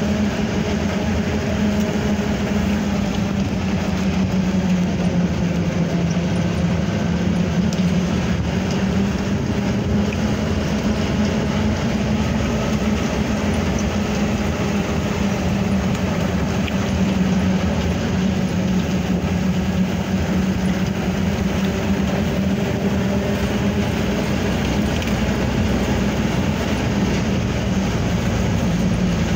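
A vehicle's engine running steadily under way, a constant low hum with road noise, heard from the back of the vehicle.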